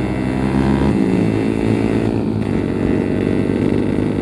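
Yamaha RX-King's single-cylinder two-stroke engine running while the motorcycle is ridden, its note changing about a second in.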